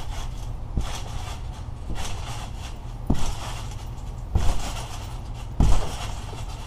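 Trampoline being bounced on: dull thumps of a jumper landing on the mat, about one every second or so, the three loudest in the second half, over a steady low rumble.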